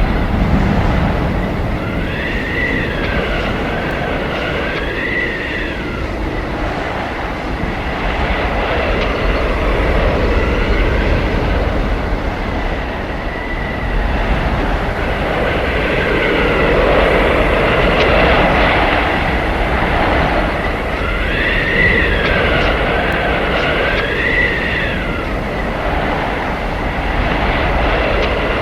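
Howling blizzard wind: a continuous gusting roar with a low rumble, swelling and easing. High whistling tones glide up and down over it, in a pair a few seconds in and another pair about three quarters of the way through.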